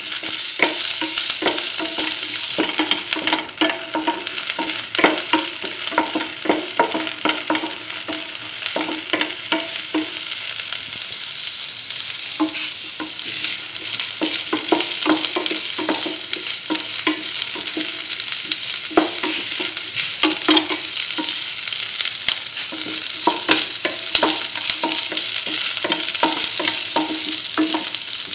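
Sliced shallots sizzling in hot oil in a pan as they are sautéed, with frequent scrapes and clicks of the stirring utensil against the pan over a steady frying hiss.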